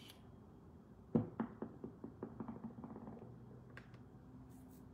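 Light tapping and clicking: a sharp tap about a second in, followed by a quick run of fainter clicks that die away over about two seconds.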